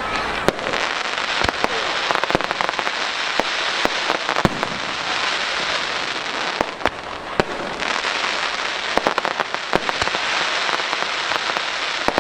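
Fireworks display: a dense crackle of many small bursts with sharp bangs scattered through it, thinning briefly a little past the middle.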